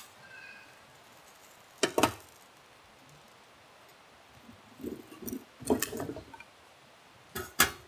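Objects being handled, giving a few sharp clinks and knocks like glass or tableware: a pair about two seconds in, a cluster around five to six seconds, and a louder pair near the end.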